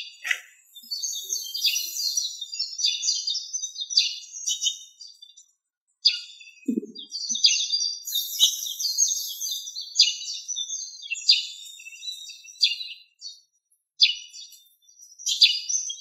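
Small songbirds chirping and twittering in quick runs of high notes, broken by short pauses, with a brief low sound about seven seconds in.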